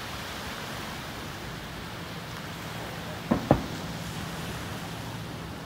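Two distant fireworks bangs, about a quarter second apart, a little past halfway through, over a steady rush of wind and surf.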